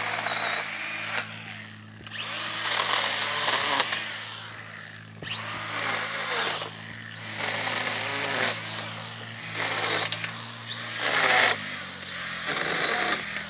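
STIHL GTA 26 battery garden pruner, a small electric chainsaw, running with a steady motor whine as its chain cuts through hedge branches. There are about seven cuts, each a rasping burst of one to two seconds, with short lulls between them.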